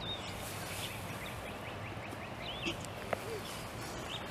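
Outdoor ambience of small birds chirping over a steady background hiss, with one sharp click about three seconds in.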